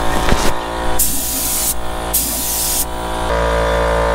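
Gravity-feed spray gun hissing in two short bursts, about a second in and again about two seconds in, as it sprays clear coat onto bare car-body panels. A steady music bed runs underneath, with a brief knock near the start.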